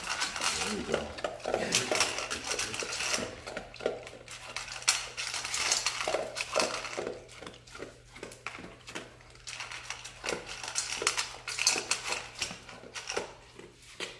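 A dog eating dry kibble from a stainless steel bowl: kibble rattling and clinking against the metal and being chewed, in irregular spurts of quick clicks.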